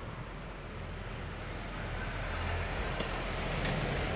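Low, steady rumbling outdoor noise with no clear tone, swelling a little in the second half.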